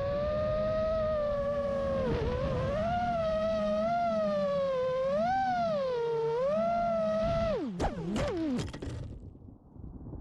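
5-inch FPV quadcopter's motors whining, the pitch wavering up and down as the throttle changes. About seven and a half seconds in, the pitch drops steeply a few times and the motors spin down and stop, leaving only a faint hiss.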